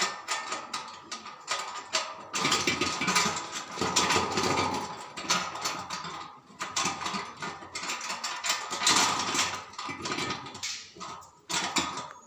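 Metal rattling and clicking in uneven bursts from a satellite dish's metal bracket being worked onto its mounting pole.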